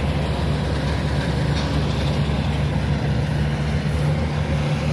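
Engine of a tracked rice-sack transport cart running steadily as it drives past, a low, even hum.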